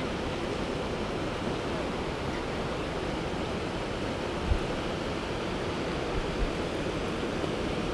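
Steady rushing of a flowing trout stream, an even hiss of moving water. A few brief low thumps come just past halfway and again a little later.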